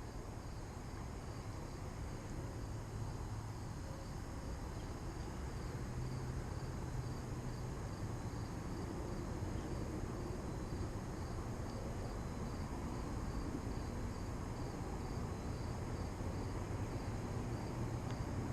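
Steady faint outdoor background noise: a low hum with a thin, steady high-pitched buzz over it, like insects chirring.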